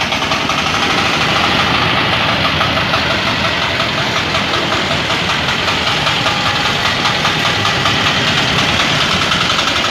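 Matsumoto MTM 1380 DE mini cultivator's single-cylinder diesel engine running steadily with a rapid knocking clatter, the machine in reverse gear and moving slowly.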